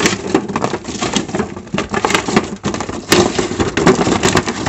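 Raw sweet potato sticks tossed by hand in a clear cake container: a dense, irregular run of small clicks, knocks and rustles as the seasoned sticks tumble against each other and the container walls.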